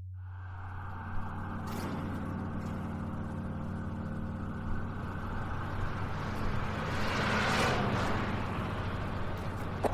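A steady low hum under a rumbling, hissing wash of noise that swells to a whoosh about three-quarters of the way through, with a few sharp clicks near the end.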